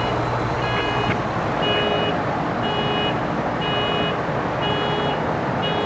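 Kia Sedona minivan's car alarm sounding, a repeated high beep about once a second, over a steady rushing noise.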